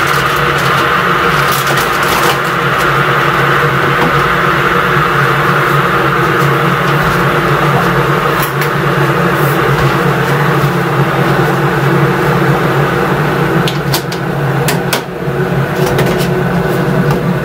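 Electric kettle heating water toward the boil: a steady rushing noise over a low hum. Plastic bag rustling and a few clicks and knocks, most of them about three-quarters of the way through.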